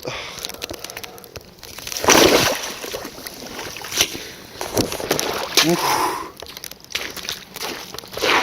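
Water splashing and sloshing in an open hole in frozen lake ice as the ice around it is broken. A loud splash comes about two seconds in, followed by several sharp knocks.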